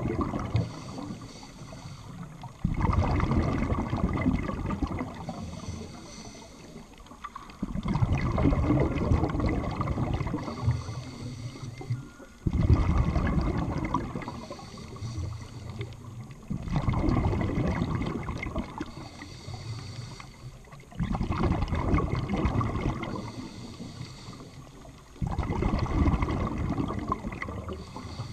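Scuba diver breathing through a regulator underwater: a loud rush of exhaled bubbles starts suddenly about every four to five seconds and fades over a couple of seconds, with a quieter high hiss between breaths.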